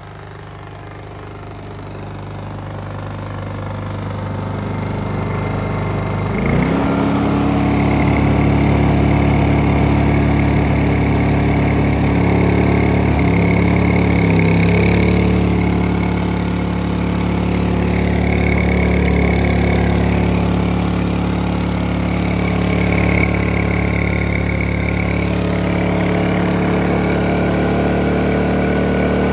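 Honda EU2000i inverter generator running on propane. Its engine speeds up with a sudden rise in pitch about six and a half seconds in, and shifts pitch again a few seconds later as electric heaters load it.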